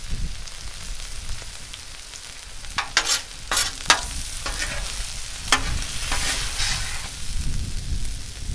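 Steak sizzling on a Blackstone flat-top steel griddle. A metal spatula scrapes across the griddle several times, about three to four seconds in and again from about five and a half to seven seconds, as the cheese-topped steak is scooped up.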